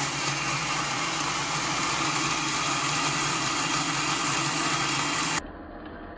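Electric coffee grinder motor running steadily, a low hum under a bright hiss. About five seconds in it cuts abruptly to a quieter, duller motor hum.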